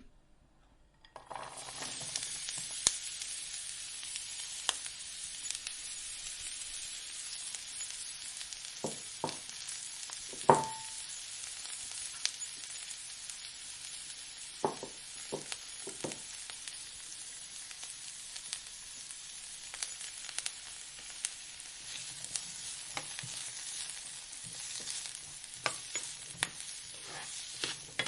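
Omelette frying in a hot pan: a steady sizzle with crackles that starts about a second in. There are a few knocks along the way, and one sharp ringing clink just past the middle.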